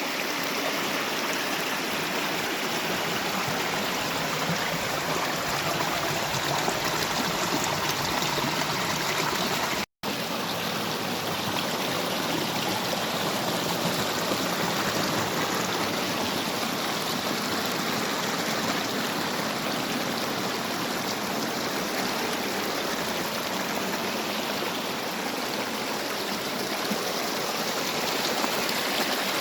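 Snowmelt stream running out from under snow: a steady rush of flowing water, broken by a brief gap of silence about ten seconds in.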